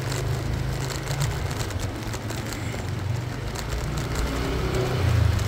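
Small motorcycle engine running on the road, with a low steady hum that grows louder near the end.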